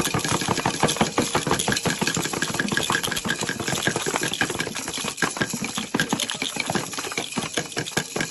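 Several hand percussion instruments played at once in a fast free jam: palms beating rapidly on two hand drums, mixed with shakers and a frame drum. It comes across as a dense, unbroken clatter of strikes with no clear beat.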